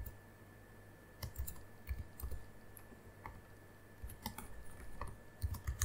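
Computer keyboard keystrokes: scattered clicks and short runs of typing with pauses between them.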